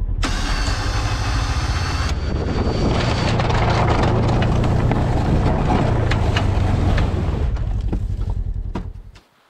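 Side-by-side UTV engine running under load as its front plow blade pushes and scrapes through deep snow, with a hissing stretch and a faint high whine in the first two seconds. The engine sound cuts off abruptly near the end.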